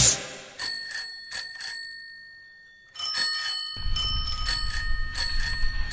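Bicycle bells ringing in a run of quick strokes, the bell interlude of a rock song: four rings in the first two seconds, then a quiet gap, then a denser run of rings from about three seconds in. A low rumble comes in underneath at about four seconds.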